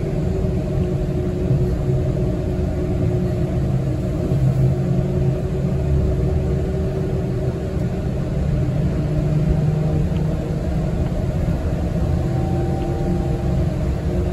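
City transit bus driving, heard from inside the passenger cabin: a steady low rumble from the engine and drivetrain, with a faint steady whine over it.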